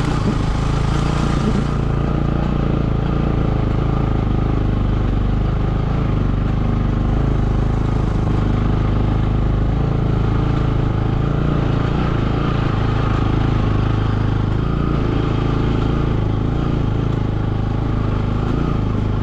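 Motorcycle engine running steadily as the bike is ridden slowly along a rough dirt track.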